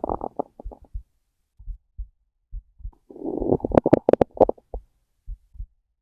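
A hungry, empty human stomach growling and gurgling over a steady heartbeat of soft low thumps. A rumble fades out in the first second, then a longer, louder gurgling growl with sharp popping crackles runs from about three seconds in to near five.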